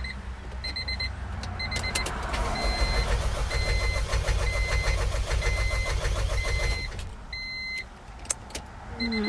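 A 1997 Honda CR-V's engine cranking on the starter for a few seconds without catching, because the fuel pump fuse is still pulled. The car's warning chime beeps steadily throughout.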